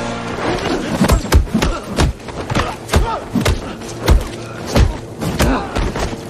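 Film fight sound effects: a run of heavy punches and body blows, about a dozen thuds at irregular intervals of roughly two a second, starting about a second in.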